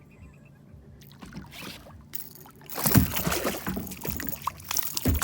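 Knocks, water noise and commotion in and against a kayak as a hooked smallmouth bass is hauled aboard and landed, starting faintly about a second in and getting loud about three seconds in, with heavy thumps then and again near the end.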